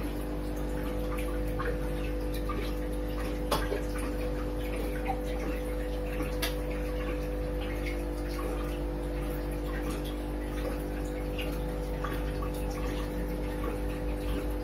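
Aquarium filtration and aeration running: a steady electric hum with water bubbling and trickling at the surface. A few sharp clicks stand out, the clearest about three and a half and six and a half seconds in.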